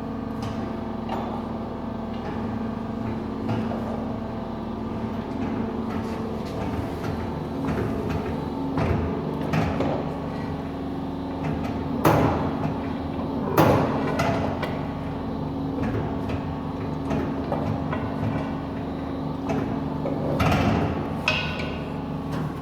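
A workshop machine running with a steady hum, with scattered knocks and two loud metallic clanks about twelve and thirteen and a half seconds in.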